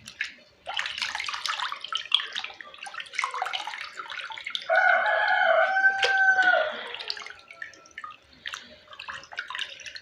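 A rooster crows once, a single long call lasting about two seconds around the middle, over water splashing and dripping.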